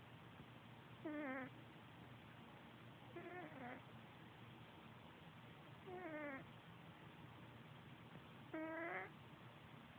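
A sleeping cat snoring: four short snores, one about every two and a half seconds, each a wavering tone about half a second long that drops slightly in pitch.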